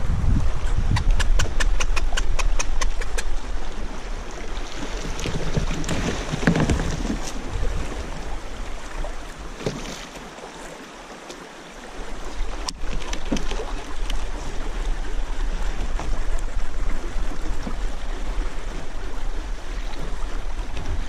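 Fast river current rushing around a kayak's plastic hull, with wind buffeting the microphone. About a second in comes a quick, even run of ticks lasting a couple of seconds, and near the middle a single sharp click.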